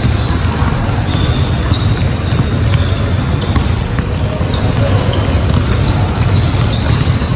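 Several basketballs being dribbled at once on a hardwood gym floor: a steady run of overlapping bounces with no break.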